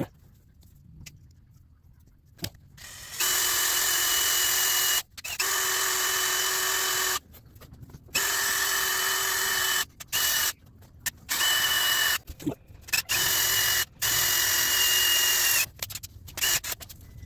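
Electric power drill run in a series of short bursts, about seven runs of one to two seconds each with pauses between, its motor holding a steady pitch.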